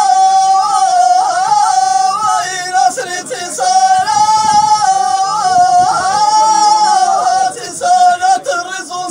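Male voice singing tamawayt, the unaccompanied Tashelhit Amazigh chant: long, high held notes joined by wavering, ornamented turns, with brief breaks near the end.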